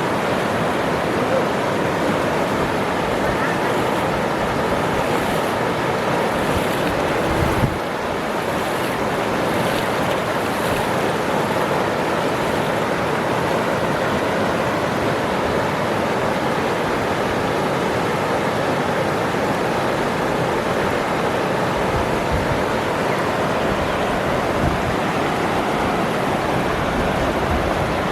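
Waterfall rushing steadily, a continuous even roar of falling water, with one brief thump about seven and a half seconds in.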